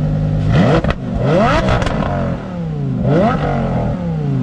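Lamborghini Huracán's V10 engine idling and being revved three times in quick succession, the pitch climbing sharply and falling back each time before it settles to a steady idle.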